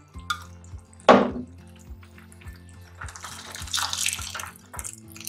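Jaggery syrup poured in a stream into a pot of simmering rice-and-milk mixture, splashing for about two seconds near the end, after a sharp knock about a second in. Soft background music runs underneath.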